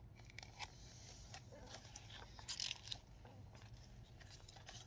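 Pages of a paperback picture book being turned and handled: faint paper rustles and light taps, the loudest rustle about two and a half seconds in, over a low steady room hum.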